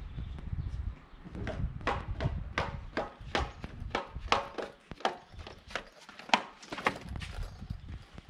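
Footsteps coming quickly down tiled stairs: a steady run of sharp clicking steps, about three a second, that stop near the end.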